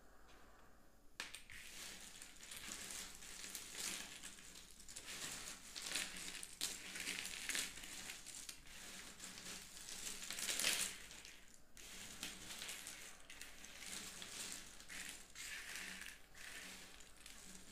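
Loose cardboard jigsaw puzzle pieces being stirred and swept by hands across a wooden tabletop, a continuous rustling clatter. It swells and fades and is loudest a little past halfway.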